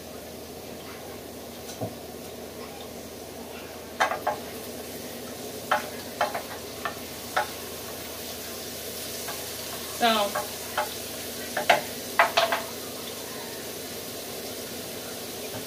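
Diced carrots and mushrooms sizzling steadily in an electric skillet. A wooden spoon stirs them, knocking and scraping against the metal pan in two bursts of sharp clicks, the first about four seconds in and the second around ten to twelve seconds in.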